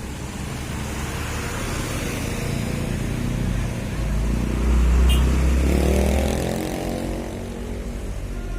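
A bus drives past close by. Its engine rumble builds to a peak about five seconds in, then rises in pitch as it accelerates away.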